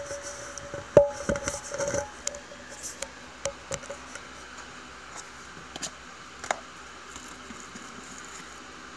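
Handling noise: a sharp knock about a second in, then a quick run of light clicks and taps, and a few scattered clicks later, over a steady faint hiss.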